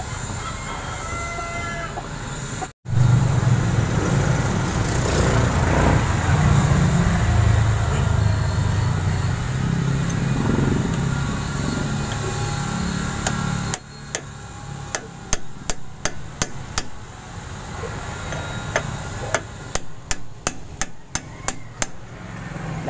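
Claw hammer tapping a metal drift to drive a new ball bearing into the front hub of a Bajaj RE three-wheeler: a quick run of light taps, a short pause, then another run. Before the taps, a loud low rumble takes up the first half.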